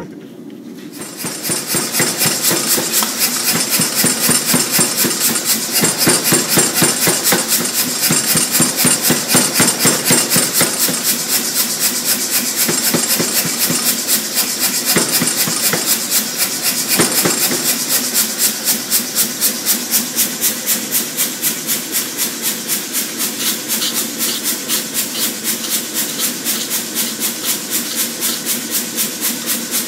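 Steady, rapid hammer blows on hot steel being forged, at roughly three blows a second, starting about a second in and continuing without a break.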